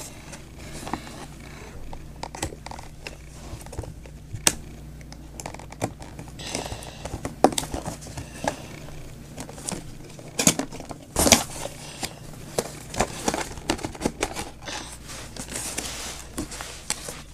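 Cardboard tablet box being handled and opened: irregular scrapes, taps and crinkles of the cardboard and packaging, with a few sharper knocks about ten and eleven seconds in.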